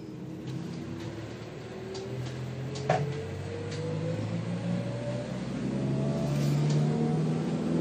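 A vehicle's engine heard from inside the cabin, accelerating, its pitch rising steadily, with one sharp knock about three seconds in.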